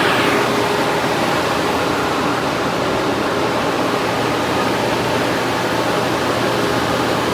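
Many drying fans and a large dehumidifier running together, a very noisy, steady rush of air with a faint low hum under it. This is the drying-out of a flood-soaked building, run to bring the humidity down and head off mould.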